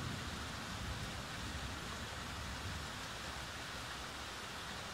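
The tail of a low thunder rumble dying away over the first two or three seconds, under a steady hiss of rain.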